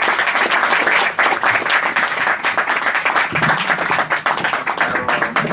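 Audience applauding, a dense patter of hand claps that begins to thin out near the end.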